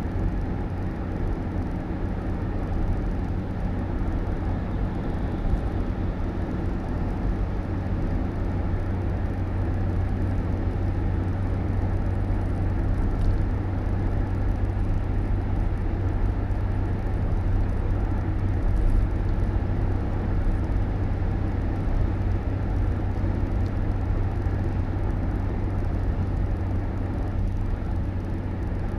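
Steady engine and road rumble of a moving vehicle, a constant low drone with a hum in it and no sudden sounds.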